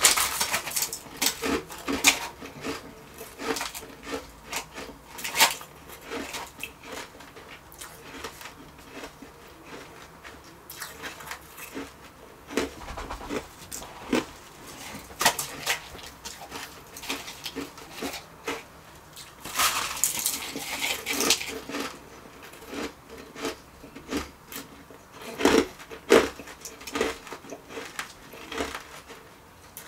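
Close-up crunching and chewing of refrozen shaved ice: irregular crisp crunches throughout, coming thickest about two-thirds of the way in and again near the end.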